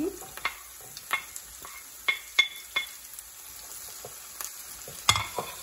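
Chopped vegetables sizzling in hot oil in a nonstick frying pan as they are scraped in from a plate with a wooden spoon and stirred, with a steady frying hiss. The spoon knocks against the plate and pan several times, the loudest knocks about two seconds in and near the end.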